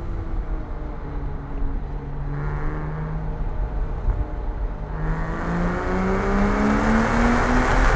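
Porsche Cayman S flat-six engine pulling through a curve, its revs easing off a little, then from about five seconds in climbing steadily and getting louder under acceleration, over a steady low road rumble.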